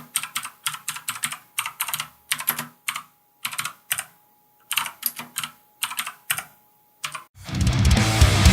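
Keys on a mechanical keyboard with clicky Outemu Blue switches being typed in short bursts of sharp clicks with brief pauses between. Loud music cuts in about seven seconds in.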